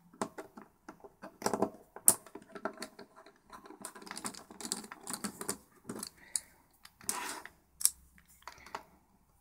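Small Torx screwdriver working tiny screws out of a plastic battery-charger case: irregular clicks, ticks and short scrapes of the driver tip and fingers on the hard plastic housing.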